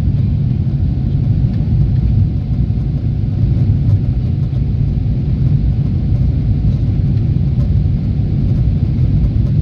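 Steady low rumble of a Boeing 777-300ER's GE90-115B engines and rushing air, heard inside the passenger cabin during the climb after takeoff.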